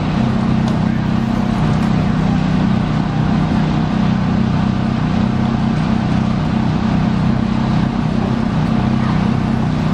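Steady, unbroken low engine drone, such as a motor vehicle idling nearby.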